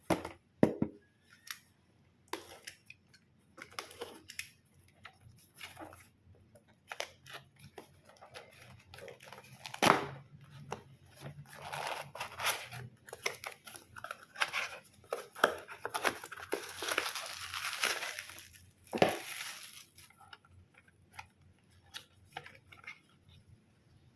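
A parcel's packaging being opened by hand: scattered rustles and light clicks, then a long stretch of tearing and crinkling in the middle, with a few sharper knocks.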